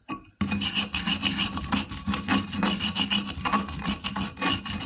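Stone pestle (ulekan) grinding and scraping a wet spice paste against a flat stone mortar (cobek). The gritty rubbing starts about half a second in and goes on in quick, uneven strokes.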